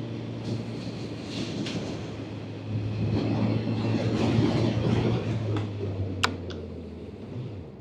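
Honda CB1000F's inline-four engine running at low revs, with wind and road noise, heard from inside the helmet with the visor down. It swells about three to five seconds in, then the engine note drops away near the end.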